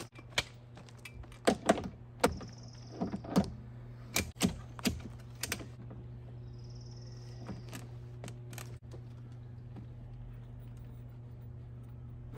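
Telescoping ladder being extended, a quick series of sharp metal clicks and clacks over the first five seconds or so as its sections slide out and lock, over a steady low hum.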